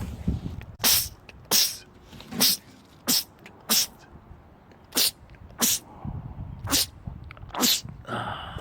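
A man sneezing in quick succession: nine short, sharp sneezes, most about two-thirds of a second apart, with a slightly longer pause near the middle.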